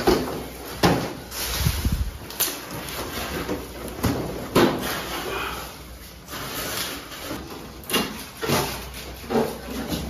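Irregular sharp knocks and clunks as a split air conditioner's plastic indoor unit is handled and hooked onto its wall mounting plate.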